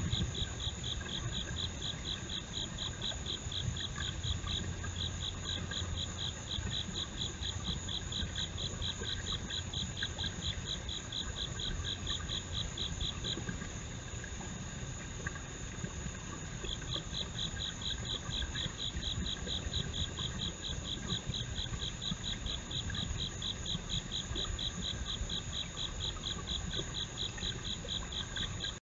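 Night insects singing: one sings a rapid, evenly pulsed high trill that pauses for about three seconds midway and then resumes, over a steady, higher-pitched insect drone.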